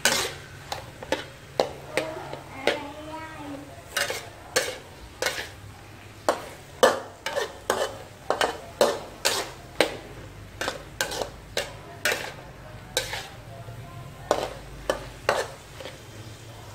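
Metal spatula scraping and clacking against a steel wok while stir-frying cauliflower and chicken organs, about two sharp strokes a second, over a faint sizzle of frying.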